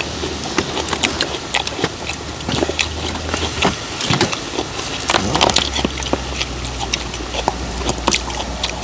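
Shellfish grilling over charcoal, with irregular clicks and crackles from the shells and from metal tongs turning them on the grate, plus some chewing. A steady low hum runs underneath.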